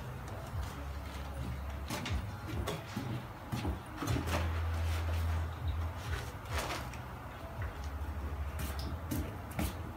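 A low steady hum with a handful of short knocks and clatters scattered through it.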